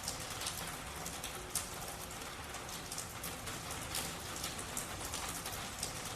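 Rain falling steadily, with many separate sharp drop impacts scattered irregularly through it.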